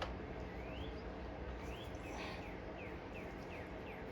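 A small bird chirping: a string of short chirps, the first two rising in pitch and the later ones quick falling slurs, about one every half second toward the end, over a low steady background hum.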